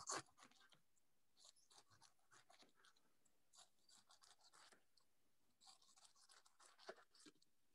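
Faint knife strokes sawing through pineapple skin, coming in short runs with pauses between.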